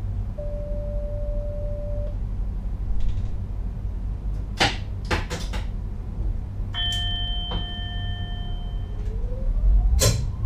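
Inside an NS Sprinter Lighttrain cab: a steady low running rumble, with a short steady electronic beep soon after the start and three sharp clicks around the middle. A longer chime-like electronic tone follows and holds for about two seconds. Near the end a tone rises in pitch, ending in a loud click.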